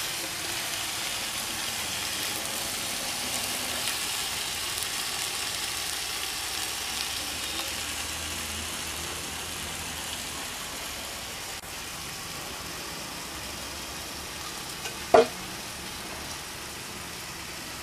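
Mutton leg frying in oil on a dosa griddle, covered by a banana leaf and an upturned steel plate: a steady sizzle that eases a little in the second half. A single short, loud knock sounds near the end.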